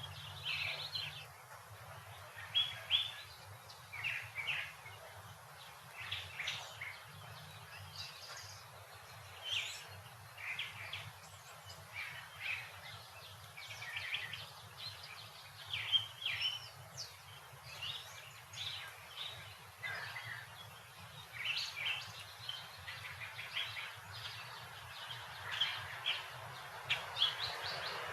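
Suburban street ambience: small birds chirping and calling on and off, in short quick notes, over a faint steady low hum.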